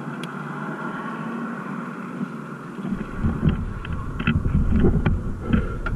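Wind buffeting the microphone: a loud, rough rumble that sets in suddenly about halfway through as the bicycle gets moving, over a steadier background hum, with a few short knocks.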